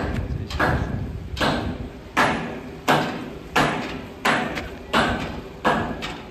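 Footsteps in slide sandals on gritty dirt and concrete at a steady walking pace: about eight scuffing steps, one every three quarters of a second.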